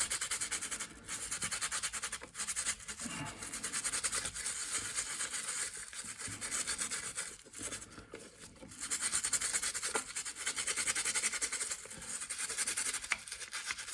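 Toothbrush bristles scrubbing a briar pipe bowl coated with Murphy's oil soap, a rapid back-and-forth brushing hiss with a few short breaks and a longer lull about seven to nine seconds in.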